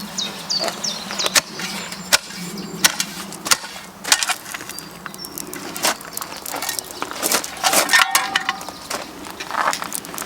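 Scattered scrapes, knocks and clicks of hands and a tool working plants out of gritty bed soil, with a few short high chirps about half a second in.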